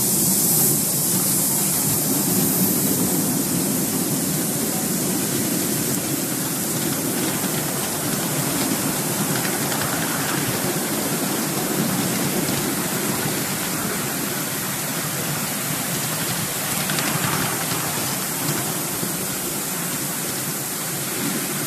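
Steady rushing noise of a miniature steam train ride, heard from the passenger cars behind a Mikado-type steam locomotive: the wheels running on the rails and the locomotive's steam.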